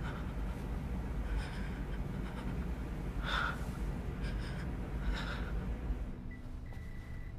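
A woman's heavy, ragged breathing: four or five sharp gasping breaths over a low steady rumble. About six seconds in, the rumble drops away and a thin, high electronic tone sounds briefly.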